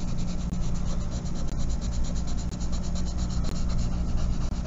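Charcoal pencil shading on drawing paper in rapid, even back-and-forth strokes, filling a square with dense dark tone.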